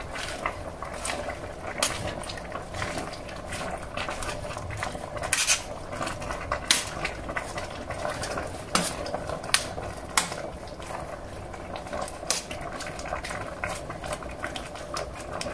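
A metal spoon stirring spinach in a stainless steel pot, clinking irregularly against the pot's side, over the steady sound of the soup simmering underneath.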